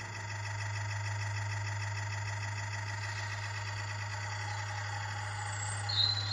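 Garden-scale model train moving slowly along the track: a steady motor hum with a faint whine over it. A brief high squeak comes near the end.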